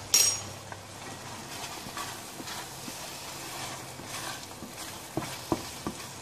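Wooden spatula stirring and scraping thick chili paste frying in a stainless steel wok. There is a sharp, ringing clink at the very start and three quick knocks of the spatula against the pan near the end.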